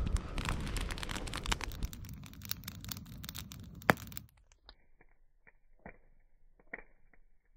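Wood campfire crackling with dense snaps and pops. About four seconds in the sound drops abruptly to a much quieter, muffled fire giving only an occasional pop.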